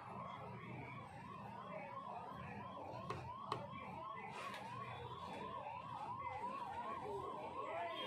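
A siren wailing in a fast rising-and-falling yelp, about three cycles a second, with two sharp clicks about three seconds in.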